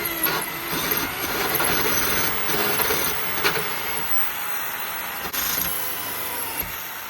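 Power cutting tool running steadily as it cuts through sheet-metal van roof, slicing a clean line for a roof vent opening.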